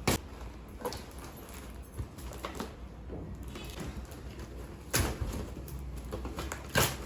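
Cardboard toy box being opened and handled: a few sharp knocks and taps with rustling of the packaging, the loudest right at the start, about five seconds in and near the end.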